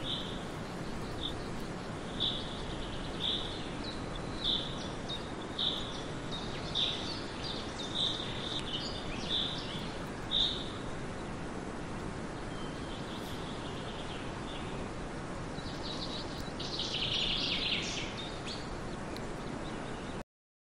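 A bird calls with a short, high chirp about once a second for the first ten seconds, over a steady background hiss. A denser run of chirps follows near the end.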